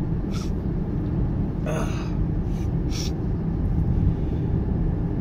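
Steady low road and engine noise inside a moving car's cabin, with three short breathy noises about half a second, two seconds and three seconds in.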